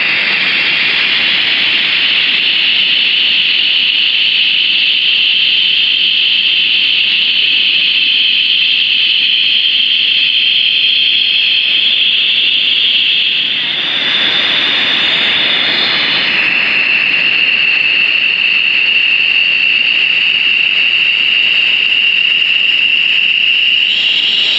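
Loud, steady rush of a waterfall close by, a constant white-noise hiss that shifts in tone briefly about halfway through.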